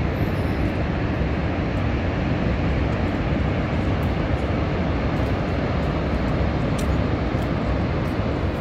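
Horseshoe Falls' water pouring over the brink and crashing into the gorge below, a steady, loud, deep rushing noise.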